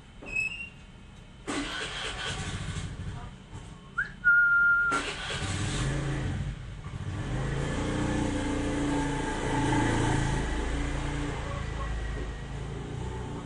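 A short single-note whistle over a rush of noise, then a motor vehicle's engine running steadily for several seconds with a low, wavering hum.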